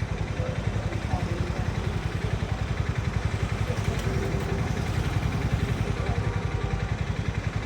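Harley-Davidson X440's single-cylinder engine running at a steady cruise, its firing pulses even and unbroken, with road and wind noise over it.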